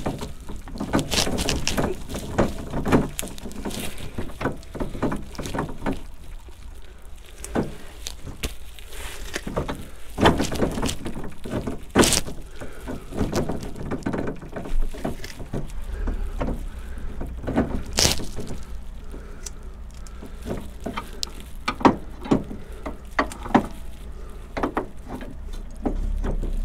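Irregular metallic clicks, scrapes and knocks as the heavy rear final drive unit of a shaft-drive Honda Deauville 650 is pushed and twisted against the drive shaft splines, with a few sharper knocks. The splines are not engaging.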